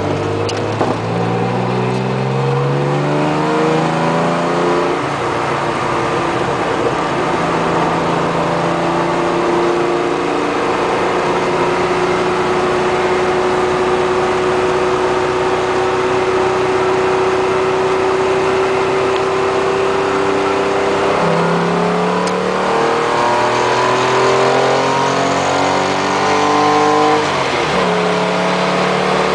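1971 Opel Commodore A coupe's engine heard from inside the cabin while driving. It climbs in pitch through the gears at the start, holds a steady note while cruising through the middle, then climbs through the gears again near the end.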